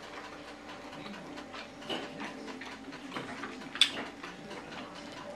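Knife and fork clinking against a plate while food is cut, a few sharp clinks with the loudest about four seconds in, over a low steady hum.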